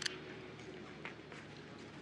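Quiet shooting-range background in the pause between two shots of a prone biathlete's small-bore rifle, with one faint click about a second in.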